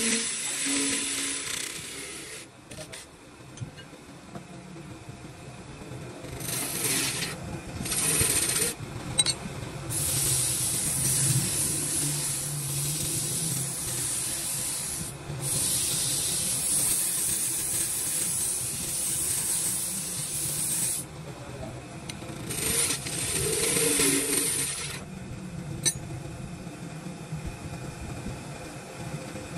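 Scraping on wood, like an abrasive or cutting tool rubbing a wooden pot, in stretches of several seconds that stop and restart, the longest in the middle. A low hum runs underneath.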